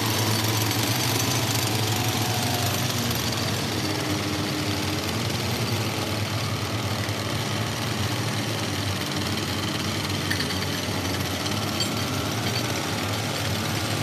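Steady mechanical din of pneumatic picks (air hammers) digging jade-bearing rock, over a low engine hum.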